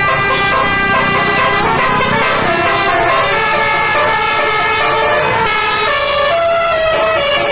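Telolet bus horns, Basuri-type multi-tone air horns on several buses, sounding together. They play overlapping musical tone patterns that change pitch in steps.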